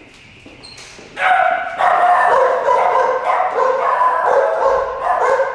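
Loud, high-pitched, wavering voice-like cries begin about a second in and carry on almost without a break.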